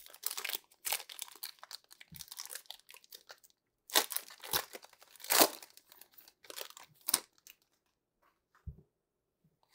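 Crinkling and rustling of trading cards and a card pack's wrapper being handled and flicked through, a string of short rustles and clicks for about seven seconds. It goes quiet, then there is one soft knock near the end.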